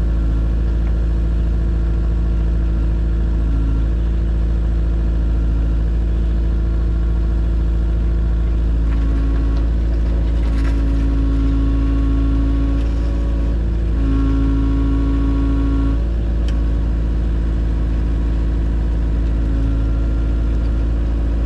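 A large engine running steadily at a constant speed. A slightly higher tone swells a little in the middle of the stretch and then settles.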